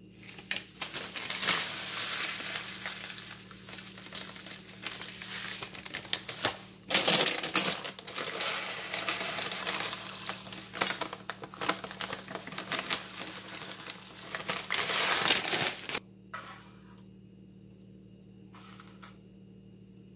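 A plastic bag of granulated sugar crinkling and rustling as sugar is poured from it into a steel pot of liquid. It starts about half a second in, breaks off briefly about seven seconds in, and stops abruptly about sixteen seconds in.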